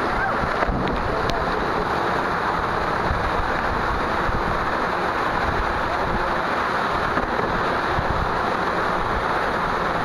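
Steady rush of a pool waterfall, a curtain of water pouring off a wall and splashing into the pool close to the microphone.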